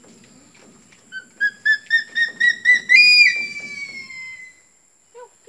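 An eagle calling: a run of about eight short whistled notes climbing in pitch, then one long, loud high scream that slowly slides down and fades.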